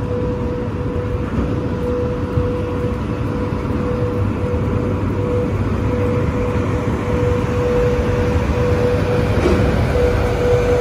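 Standing VL80-series electric locomotive running its on-board equipment: a steady whine over a low rumble, growing slightly louder as it is approached.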